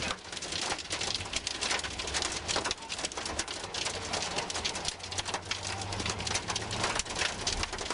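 Heavy rain hitting a car's roof and windshield in dense, irregular taps, heard from inside the moving car over a low steady rumble of engine and road.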